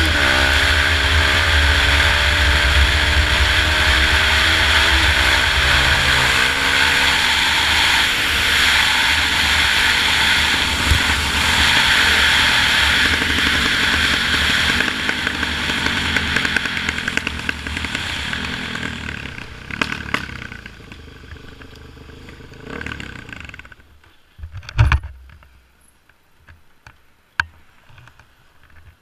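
Suzuki DR-Z single-cylinder four-stroke engine accelerating with a rising note, under heavy wind noise on the microphone. It then eases off as the bike slows, fades to a low running note and falls quiet. Near the end comes a single sharp thump and a light click.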